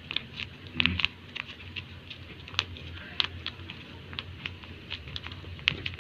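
A homemade tape-covered paper squishy crinkling and crackling in small irregular clicks as fingers squeeze and press it.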